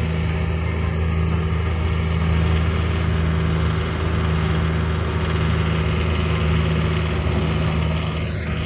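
Caterpillar mini excavator's diesel engine idling with a steady low hum.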